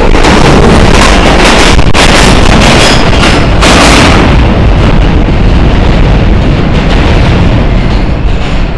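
R160 New York City subway train pulling out of the station close by: loud wheel and rail noise with a rapid run of clicks and knocks over the rail joints for the first four seconds, then fading as the train draws away into the tunnel.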